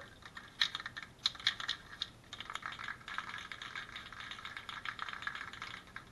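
Aerosol can of self-etching primer being shaken, the mixing ball inside rattling in quick, irregular clicks that grow denser after about two seconds, mixing the primer before spraying.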